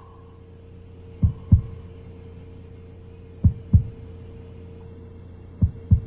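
Heartbeat sound effect: three slow double thumps (lub-dub), about two seconds apart, over a steady low hum.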